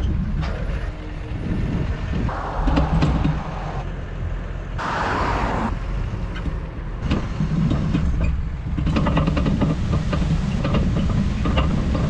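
Tractor engine running steadily as it pulls a trailed crop sprayer, with two short bursts of hiss about two and five seconds in. Rapid knocks and rattles join in over the last few seconds.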